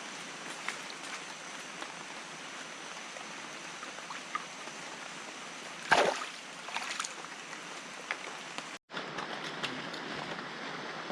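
Steady rush of flowing creek water, with faint scattered ticks and one sudden loud sound about six seconds in.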